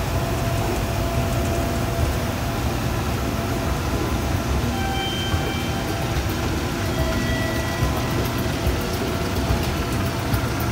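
Old Toshiba escalator (installed around 1978–81) running steadily, heard from its moving steps: a low mechanical rumble with a few faint whining tones. Light clicks come in near the end as the steps reach the top landing.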